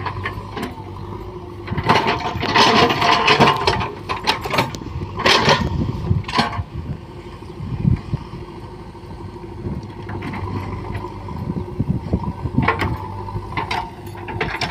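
JCB 3DX backhoe loader's four-cylinder diesel engine running under load while the backhoe digs. Loud bursts of scraping and crunching come from the bucket cutting into and lifting wet soil, about two seconds in, again at five and six seconds, and again near the end.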